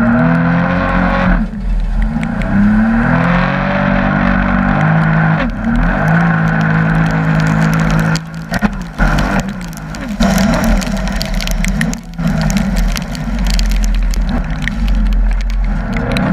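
Sea-Doo jet ski engine running under throttle, its pitch rising and falling as the craft crosses choppy water, with wind and water rushing past and spray hitting the hull, and a few brief drops in level in the second half.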